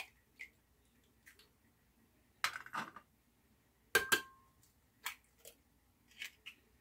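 Eggs being tapped and cracked on the rim of a blender jar: a scattered series of sharp taps and clicks, the loudest about four seconds in with a brief ring from the jar.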